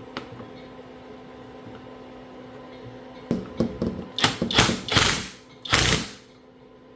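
Socket ratchet clicking in about six short bursts, starting about three seconds in, as the rack guide cap is turned into a steering rack housing.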